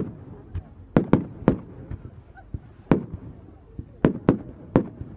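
Fireworks going off in a quick, uneven series of sharp bangs, about a dozen, some loud and some fainter.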